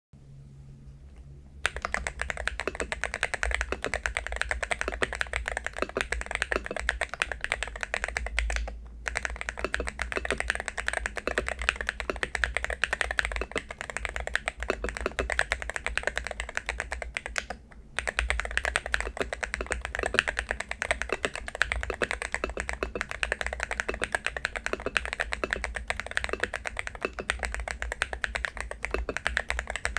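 Continuous typing on an AULA Hero68HE Hall-effect magnetic-switch keyboard with silver switches: a dense stream of key clacks that starts a couple of seconds in and pauses briefly twice.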